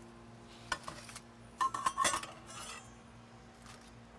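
Metal grill spatula clinking and scraping against foil, plate and grill as a grilled salmon fillet is lifted off, in a few separate clatters with a short ringing clink near the middle.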